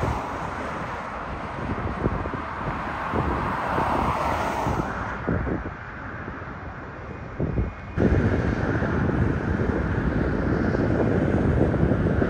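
Aircraft engine noise with wind buffeting the microphone. About eight seconds in it cuts abruptly to louder, steadier engine noise.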